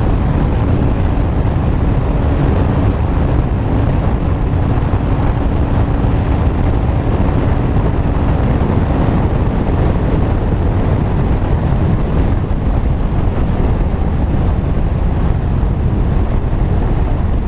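Heavy wind rush on the microphone of a Honda CBR500R ridden at about 180 km/h, with its 471 cc parallel-twin engine running under it. A faint steady hum in the engine noise drops away about nine seconds in.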